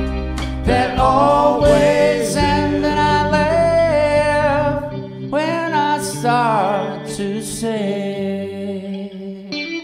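Live rock band playing with sustained sung vocals over guitars; the bass and drum low end drops out about halfway, leaving the voices and guitar ringing out.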